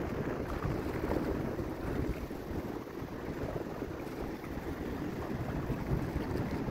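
Wind buffeting the microphone, an uneven rumbling hiss over the wash of small waves lapping at the water's edge.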